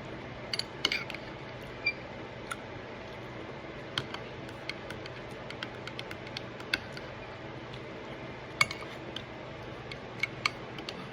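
A spoon clinking against a dish in scattered light clicks, over a steady low hum.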